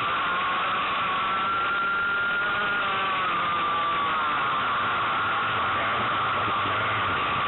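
Racing kart engine running hard at high revs under a steady rush of noise, its pitch edging up about a second in and then dropping away about three seconds in as the revs fall.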